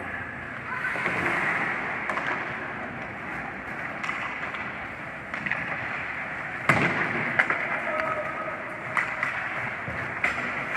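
Ice hockey play: skate blades scraping and carving the ice under a steady rink hum, with several sharp clacks of sticks on the puck or the boards, the loudest about two-thirds of the way through.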